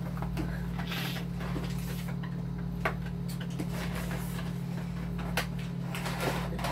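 A small cardboard product box being opened and handled: scattered taps, scrapes and packaging rustles as the inner tray slides out, over a steady low hum.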